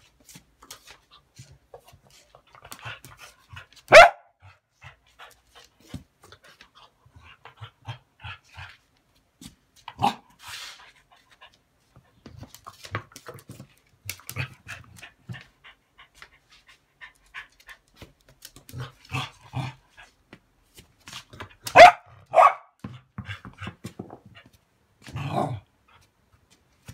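Corgi giving a few short, sharp barks several seconds apart, two of them close together past the middle, with panting in between.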